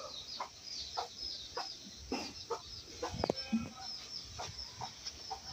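Birds calling: a quick, continuous run of short, high chirps, with a few lower clucking calls, the loudest a little past halfway.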